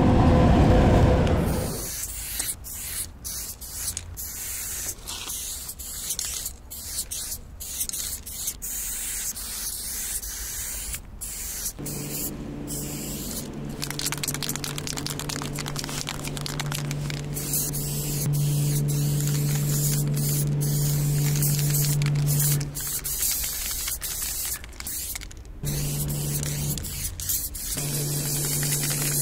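Aerosol spray-paint can hissing in many short bursts with brief stops between them as lines are sprayed onto a wall. It opens with a loud rush lasting about a second and a half, and from about halfway through a steady low hum runs under the spraying.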